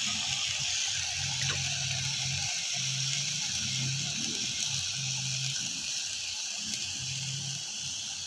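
Steady hiss of mixed vegetables sizzling in a metal pot over a strong wood fire.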